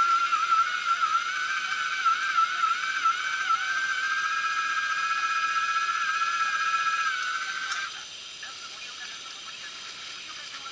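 A single high whistling tone that wavers at first, then holds steady and edges slightly higher, and cuts off suddenly about eight seconds in, leaving a soft hiss.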